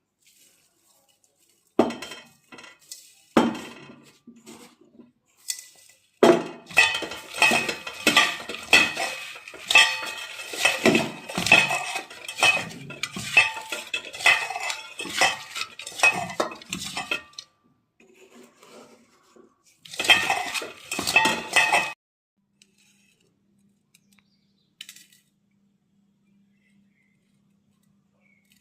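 Metal utensils clinking and scraping against a cooking pan in quick, uneven strokes, with a few separate knocks at first and a longer run of clatter that stops, starts again briefly, then gives way to a faint low hum.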